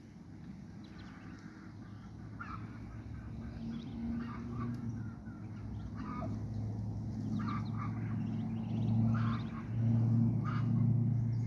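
Muscovy ducks giving short, repeated calls, over a low steady hum that grows louder toward the end.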